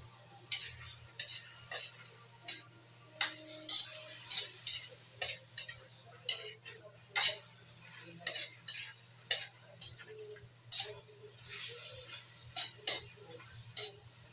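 Spatula scraping and knocking against a metal wok as chicken pieces are stirred, in irregular strokes, with a faint sizzle of frying underneath.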